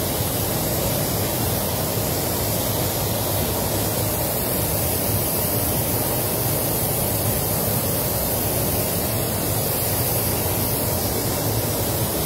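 Steady, even hiss of compressed air and spray from a gravity-feed spray gun laying clear coat and fading it out over a spot repair, mixed with the steady airflow of the paint spray booth.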